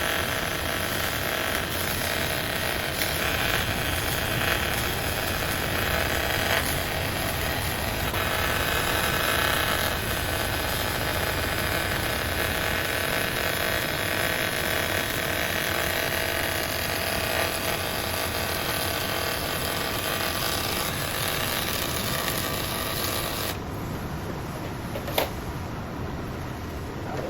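TIG welding arc on stainless steel, a steady hiss and buzz that stops about 23 seconds in. A sharp click follows a little later.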